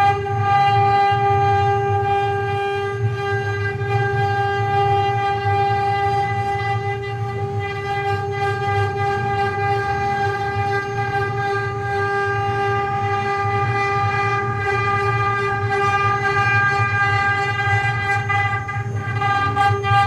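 Mini CNC wood-carving router running, its spindle giving a steady high whine over a lower rough hum.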